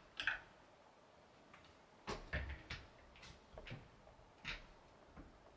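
Scattered light clicks and knocks of objects being handled: two sharp clicks at the start, then after a quiet second an irregular run of knocks and clacks, some with a dull thud underneath.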